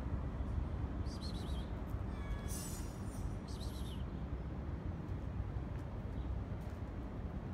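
Steady low outdoor rumble with three short, high-pitched chirping calls: about a second in, near two and a half seconds, and about three and a half seconds in.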